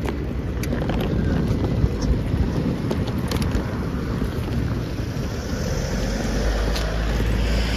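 Wheels of hard-shell rolling suitcases running over rough asphalt: a steady, dense rattle with scattered small clicks, mixed with wind on the microphone.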